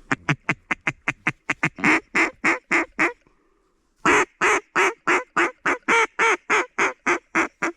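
Duck call blown in quacks, in two long runs of rapid, evenly spaced quacks with a short pause about three seconds in.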